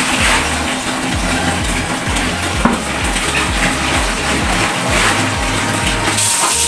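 Clothes being swished and squeezed by hand in a plastic basin of soapy water, with splashing, while a tap runs a stream into a plastic bucket. Background music with a steady bass line plays underneath.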